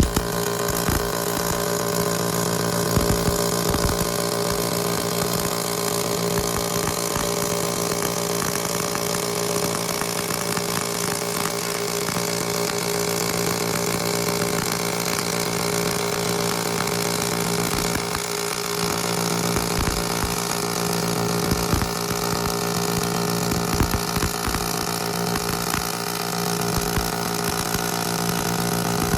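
Robotic arc welding along an edge joint. The arc strikes suddenly at the start, then runs as a steady buzz with continual crackling.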